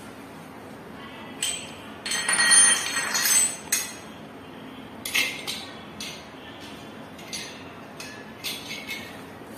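Metal tap fittings clinking and knocking as they are handled: a busy run of ringing metallic clinks from about one and a half to four seconds in, then scattered lighter clicks and taps.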